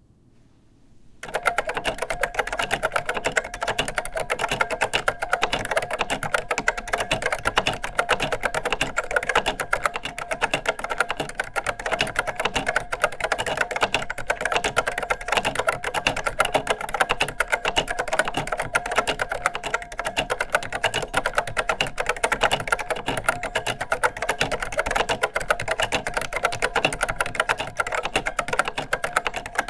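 Vintage Unitek K-155 mechanical keyboard with Marquardt Series 6180 linear switches being typed on quickly and continuously, starting about a second in. Each keystroke clacks, and spring ping rings and reverberates in the keyboard's large, roomy case.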